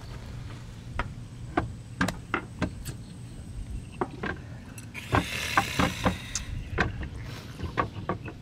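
Scattered light clicks and knocks of small drinking glasses, chopsticks, bowls and a ladle being handled and set down on a wooden deck, with a brief rustling clatter about five seconds in. A steady low hum runs underneath.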